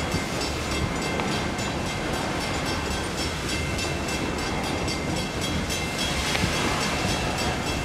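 Freight train's tank cars rolling past on the rails, with a railroad crossing's mechanical bell ringing in rapid, even strokes.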